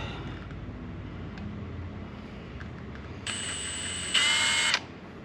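Electric drill running a small bit into an aluminum bracket in one short burst of about a second and a half. It is a steady high whine that gets louder partway through, as the bit walks on the metal.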